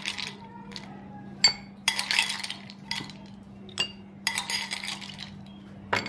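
Ice cubes clinking and clattering into small glass tumblers: rattling bursts a couple of seconds apart, with single sharp clinks between them.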